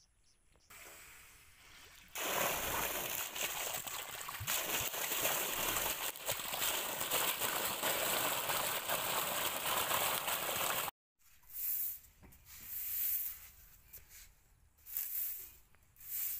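A strong flow of water gushing and splashing into shallow standing water: a steady rushing that starts about two seconds in and cuts off suddenly about eleven seconds in. After it come several short bursts of plastic bag rustling.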